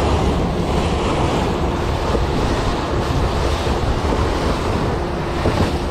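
Motorboat under way: a steady rush of water and wake spray along the hull over the running engine, with wind buffeting the microphone.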